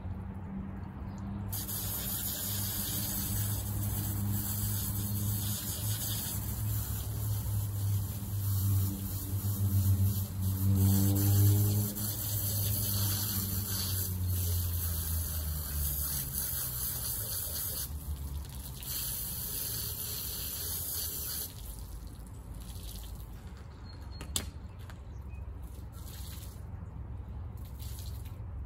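Water spraying steadily onto a car while it is washed, over a low motor hum that falls in pitch and fades about halfway through. The spray stops about three-quarters of the way in, leaving a quieter background with a single click.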